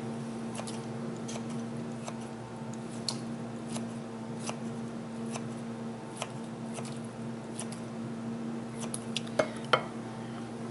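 Kitchen shears snipping raw chicken pieces: a run of short, crisp snips about one a second, the loudest pair near the end. A low steady hum runs underneath.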